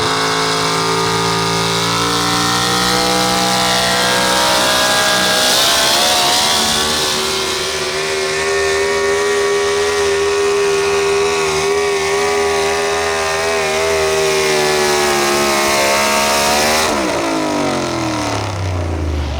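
Pro stock 4x4 pulling truck engine at full throttle during a pull. The revs climb over the first several seconds and hold high and steady, then the throttle is cut near the end and the revs fall away quickly.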